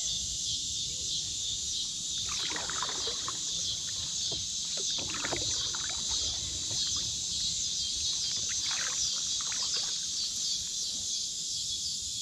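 Paddle strokes splashing and dripping in the water in three bouts a few seconds apart, over a steady high buzz of insects.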